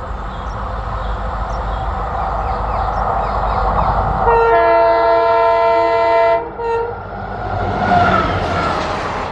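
Diesel locomotive of the WDP4 class approaching with its engine running. About four seconds in it sounds a long multi-tone horn blast, then a short toot. Near the end it passes close with a loud rush of wheel and engine noise.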